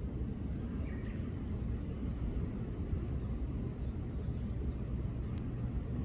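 Steady low outdoor rumble with no clear events, the kind of background hum made by distant traffic or wind.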